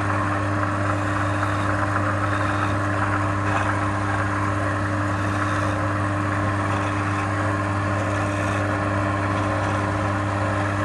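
Wood lathe's electric motor running with a steady hum while a hand-held turning tool cuts and scrapes the spinning wooden workpiece.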